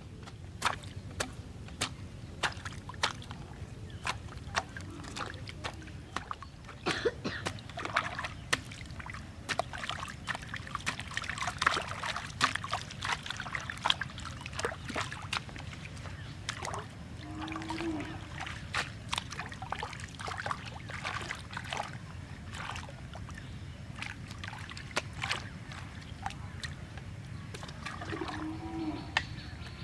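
Water splashing and sloshing, with many sharp clicks and knocks, busiest in the first half.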